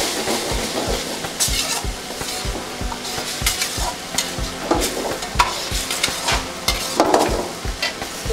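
A steel ladle stirring and scraping Maggi noodles around a black iron wok over a gas flame, with the sizzle of the frying broth underneath. Sharp scrapes and clinks of ladle on wok come every second or two.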